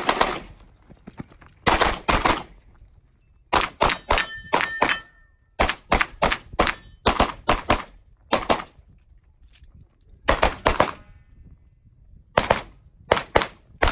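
Open-division competition pistol firing rapid shots, mostly in quick pairs, in strings separated by short pauses of about a second as the shooter moves between target arrays.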